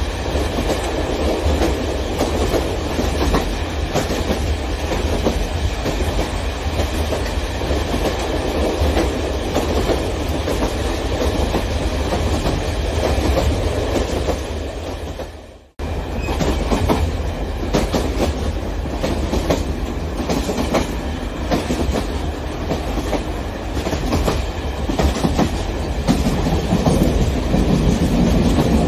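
O-scale electric model trains running on sectional track, wheels clicking over the rail joints with a steady hum. The sound fades away about halfway through and cuts straight back in.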